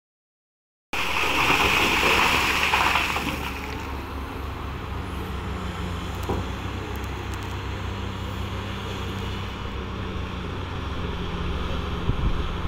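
Coal falling from a Komatsu PC2000 hydraulic excavator's bucket into the steel bed of a Cat 777E dump truck. It starts about a second in as a loud rushing clatter lasting two to three seconds. After that the heavy diesel engines run with a steady low hum while the excavator digs, with a few faint knocks.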